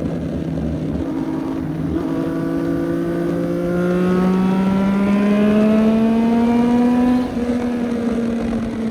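CFMOTO 675NK motorcycle's inline three-cylinder engine and exhaust, running steadily at first and then accelerating under throttle with a steadily rising pitch for a few seconds. Just past the middle the throttle closes, and the sound drops and the pitch eases down.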